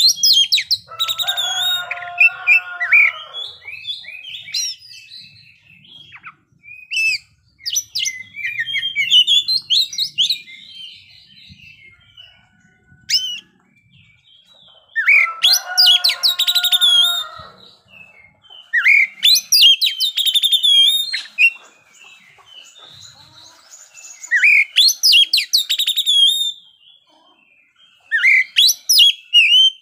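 Oriental magpie-robin in full song: loud, varied bursts of rapid whistles and trills, with a few rougher, lower phrases, broken by short pauses of a second or two.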